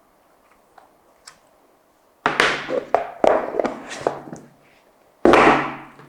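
Phone box packaging being handled during an unboxing: a few faint taps, then a run of sudden loud scraping and rustling noises about two seconds in, and another loud one near the end.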